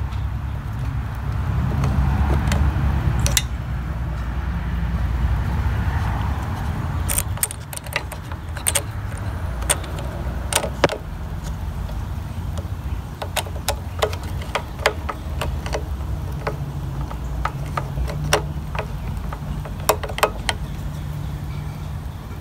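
Small metallic clicks and scrapes of a screwdriver turning in the screws that hold a new primer bulb's retaining plate to the carburettor of a Honda GX31 engine, scattered irregularly over a steady low hum.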